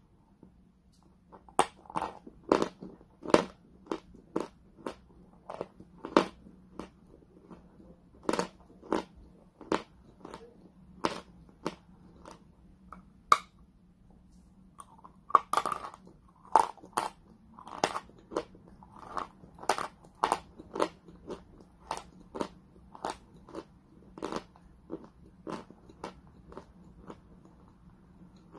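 Chalk being bitten and chewed close to the microphone: sharp, dry crunches, about one or two a second, with a short pause partway through.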